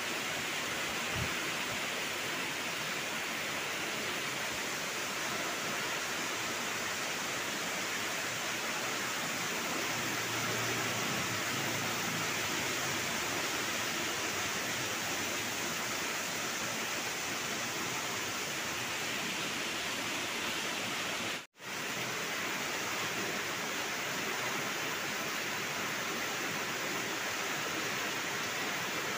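Heavy rain pouring down steadily in a windy rainstorm, a dense even hiss of rain on the roofs and runoff. The sound cuts out for an instant about two-thirds of the way through.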